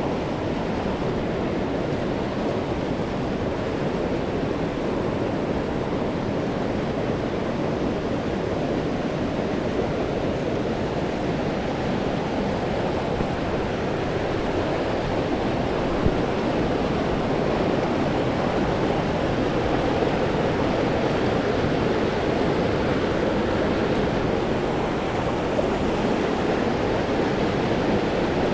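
Small mountain stream running fast and high with snowmelt: a steady rush of flowing water.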